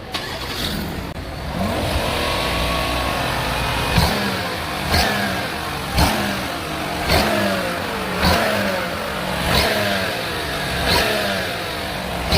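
Car engine being revved in repeated short throttle blips, about one a second, each starting suddenly and falling back in pitch; the noise is linked to the accelerator.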